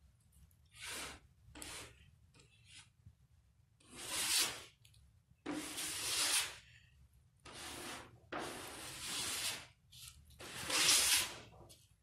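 Aerosol spray paint can hissing in about eight short bursts, some under half a second and others over a second long, with pauses between them.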